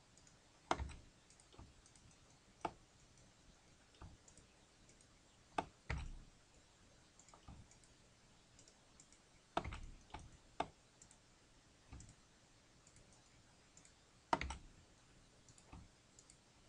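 Faint, irregular clicks of a computer mouse and keyboard keys, about a dozen in all, some in quick pairs.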